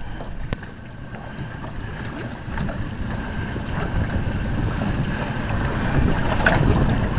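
Wind buffeting the microphone over the steady hum of a trolling fishing boat's motor, growing louder from about two seconds in, with a few sharp knocks near the end.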